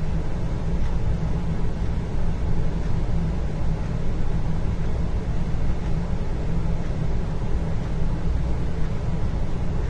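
Steady indoor room ambience: an even low rumble with a fainter hiss above it, unchanging and without distinct events.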